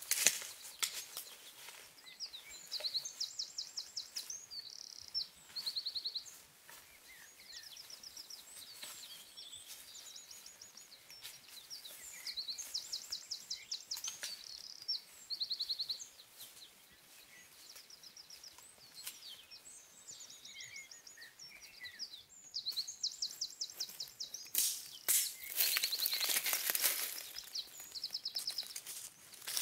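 Woodland songbirds singing, repeated short, fast, high trills every second or two. A few sharp clicks, and a louder burst of rustling near the end.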